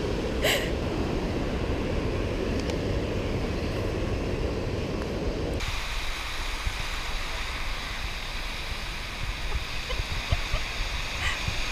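Steady wash of ocean surf breaking on a sandy beach. The noise changes abruptly about halfway through, becoming thinner and hissier.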